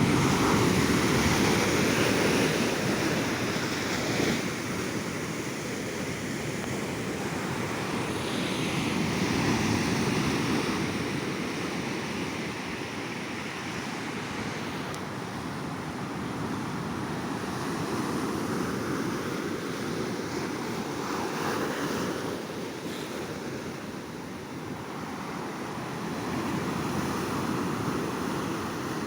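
Ocean surf on a beach: waves breaking and washing up the shore, a steady rush that swells and eases in slow, uneven surges.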